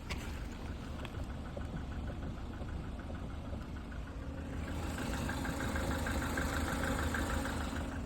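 Lada Granta FL idling while standing still, heard inside the cabin. About halfway through, a fast rhythmic ticking comes in over the engine hum: the new knock the owner cannot place and suspects is in the suspension.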